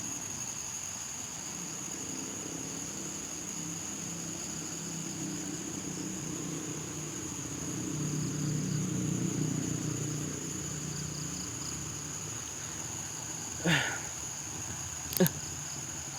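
Crickets and other night insects trilling steadily at a high pitch. A low hum swells and fades midway, and two brief sharp sounds come near the end.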